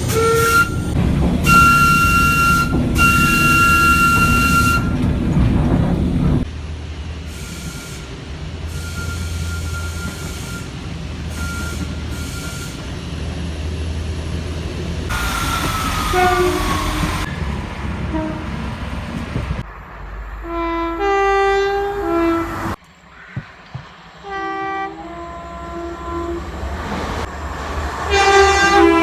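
A string of train horn blasts cut together from different trains, mostly two-tone horns sounding short and long notes over the rumble of trains running. Some blasts fall in pitch as the train passes, and the sound jumps abruptly between clips.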